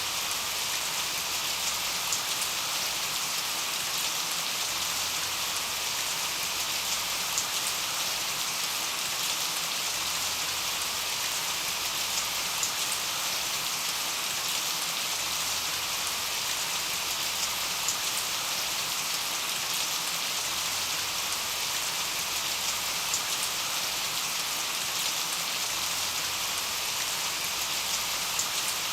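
Steady rain falling, an even hiss of many drops with occasional louder individual drop ticks.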